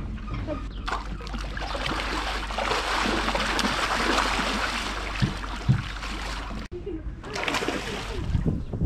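Salmon thrashing at the surface of a farm pen, with water splashing and churning in a dense wash that builds and breaks off briefly before a second burst of splashing. Two dull thumps come close together midway.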